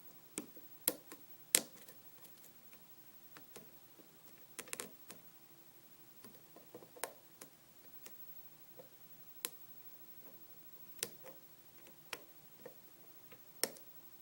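Hook pick and tension wrench working the pins of a 5-pin pin-tumbler lock with security pins: irregular sharp clicks, about one or two a second, some louder than others, as pins are lifted and set.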